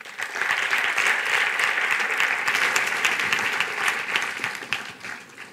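Audience applauding, starting at once, holding full for a few seconds and then dying away near the end.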